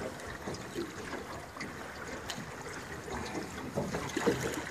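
Swift river current rushing and lapping against the side of a drifting boat, with a couple of light knocks near the end.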